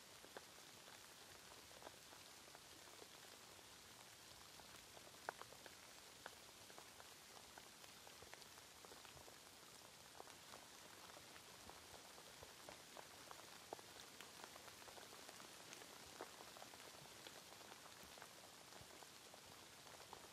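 Faint steady rain: a soft even hiss with scattered individual drops ticking sharply on a surface.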